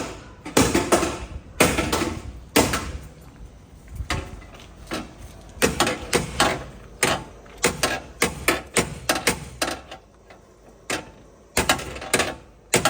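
Irregular sharp knocks and clanks of repair work, coming in runs of several a second with short ringing tails, and quieter gaps between the runs.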